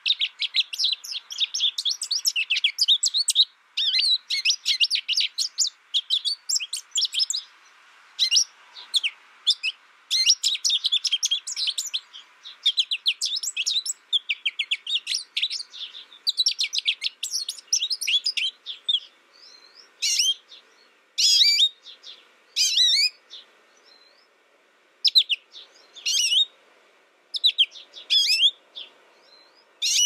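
Goldfinch singing: long runs of rapid, twittering high notes broken by short pauses, turning into shorter, separate bursts of song in the second half.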